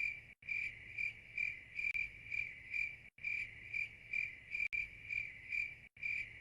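Insect chirping, cricket-like: a steady train of short chirps at one high pitch, about two and a half a second, with three very short dropouts.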